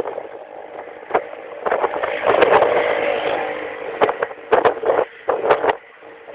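Thunderstorm with wind and rain on the microphone: a steady rushing noise with sharp crackles throughout and a broad surge that swells and fades about two to three and a half seconds in.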